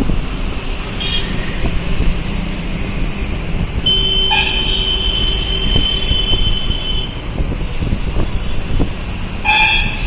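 Road traffic rumbling along with vehicle horns honking: a short toot about a second in, one horn held for about three seconds from about four seconds in with other short toots over it, and another short blast near the end.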